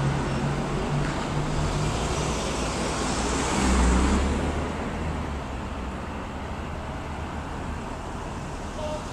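Car passing close by about four seconds in, its engine and tyre noise swelling to a low rumble and fading, over steady road traffic noise.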